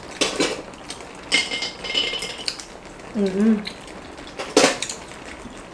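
Chopsticks and metal spoons clinking and tapping against ceramic bowls and plates while people eat, a scattering of short clinks, a few of them ringing briefly, with the sharpest near the end.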